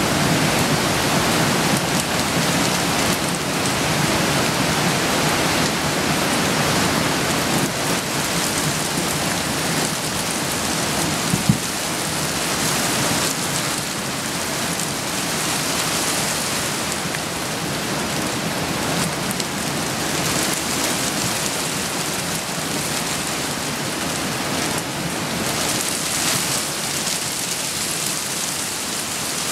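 Floodwater of a swollen mountain stream rushing and churning in a steady roar of noise, with rain falling. A single brief knock sounds about a third of the way in.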